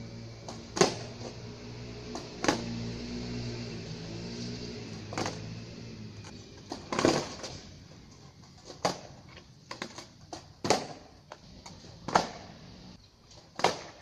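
Skateboard clacking on a paved path during repeated flat-ground ollie attempts: about eight sharp clacks of the tail popping and the board landing, every one and a half to two seconds, with a short burst of clatter about seven seconds in.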